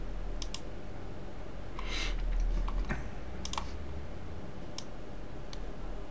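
Computer mouse clicks and keyboard key presses: a handful of short, sharp clicks spaced irregularly, about a second apart, over a steady low hum.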